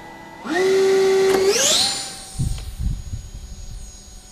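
Electric ducted fan of a 3D-printed RC MiG-21 jet spooling up to a loud whine about half a second in. Its pitch rises near the two-second mark as the plane is launched, and the whine then fades as it flies off. A few low thumps come about halfway through.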